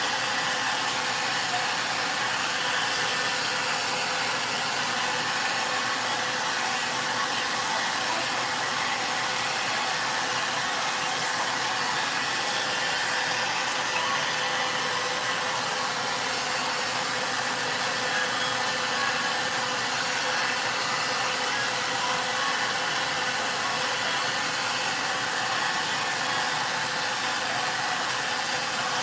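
Handheld hair dryer blowing steadily: a constant rush of air with a faint steady tone running through it.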